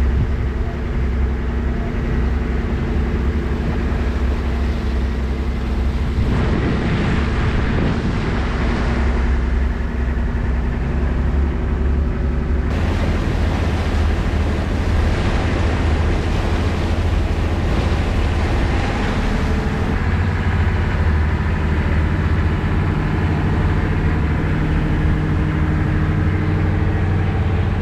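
Engine of an old cabin cruiser running steadily while the boat is underway, a low even drone. A rushing hiss of water and wind swells and fades twice over it.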